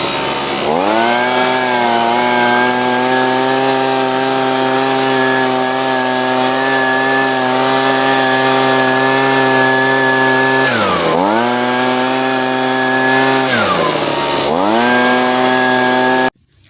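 Husqvarna 125B handheld two-stroke leaf blower running at full throttle. Twice in the second half the throttle is let off briefly, and the engine note drops and climbs back. It cuts off suddenly just before the end.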